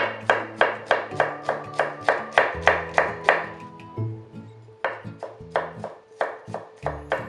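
Kitchen knife mincing garlic on a wooden cutting board: quick, even chopping strokes about three a second, stopping for about a second midway, then chopping again. Background music plays underneath.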